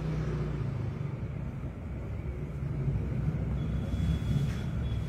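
Low, steady background rumble, with a faint thin high tone joining about three and a half seconds in.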